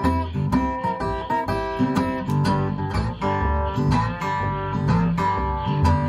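Acoustic guitar in open G tuning picking a rhythmic Delta blues figure, with a washtub bass plucking low notes under it.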